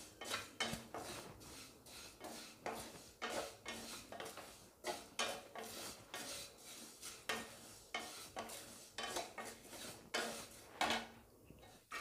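A wooden spatula stirs and scrapes vermicelli roasting in a stainless steel kadai, in short strokes a little under two a second that stop near the end.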